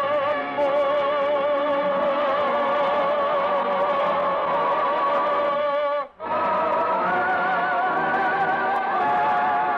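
Operatic singing with orchestra: long sustained final notes of a love duet, sung with wide vibrato. The sound drops out for a split second about six seconds in, then the held chord resumes and climbs to higher notes near the end.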